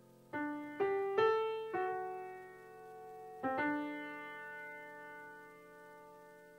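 Slow, soft piano music: a few single notes struck one after another in the first two seconds, then a chord about three and a half seconds in, left to ring and fade away.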